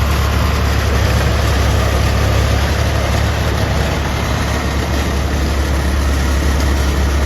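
Skid steer loader's diesel engine running steadily at a low, even speed, a loud low drone with no revving.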